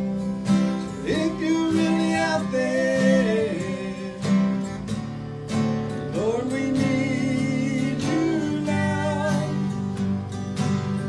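Live acoustic country gospel music: strummed acoustic guitars and a fiddle, with a melody line that slides up into its notes twice.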